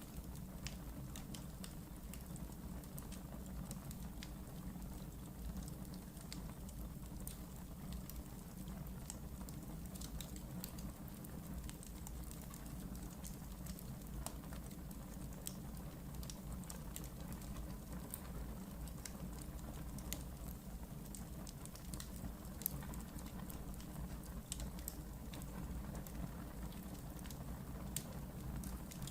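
Wood fire burning in a fireplace, with a steady low rumble and frequent small, sharp crackles and pops scattered throughout.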